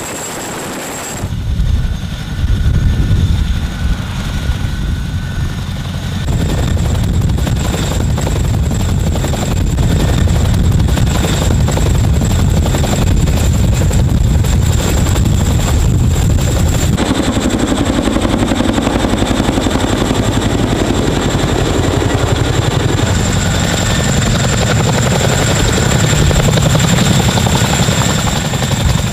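Boeing CH-47 Chinook tandem-rotor helicopter hovering low under a sling load: a dense, rapid beat from the rotors over a deep rumble, with a steady high turbine whine above. The sound changes abruptly a few times, about a second in, about six seconds in and past the middle.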